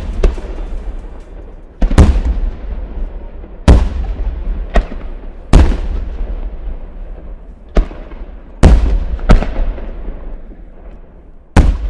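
Aerial firework shells bursting in a string of about nine loud bangs, one every one to two seconds, each trailing off in a fading rumble.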